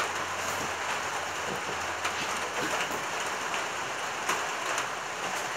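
Heavy pouring rain, a steady hiss with a few faint scattered taps.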